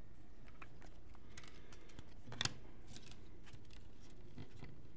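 Trading cards being handled: scattered light clicks and scrapes of cards and packs being shuffled and set down, with one sharper click about two and a half seconds in.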